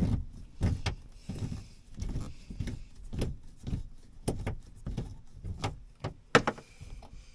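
Irregular clicks, taps and light knocks from hands and tools working at the base of an air handler, with one sharper click about six seconds in.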